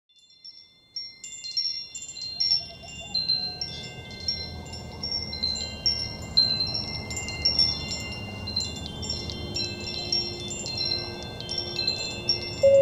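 Wind chimes tinkling: many quick, irregular high notes that start about a second in, over a low steady rumble.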